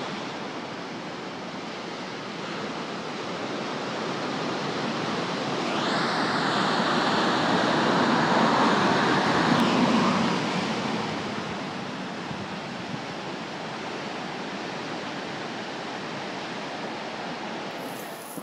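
Ocean surf: a steady wash of waves that swells as a wave breaks and rushes in about halfway through, then eases back to a steady hiss.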